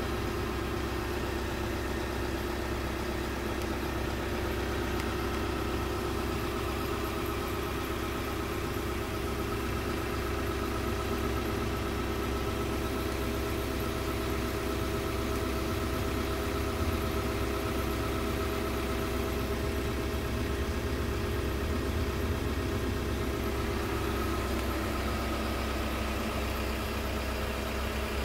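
Scania R truck's diesel engine idling steadily, heard from inside the cab.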